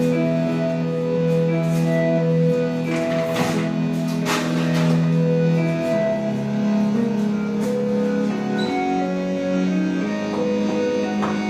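Instrumental music with long held notes, broken by a few short noisy hits about three and four seconds in.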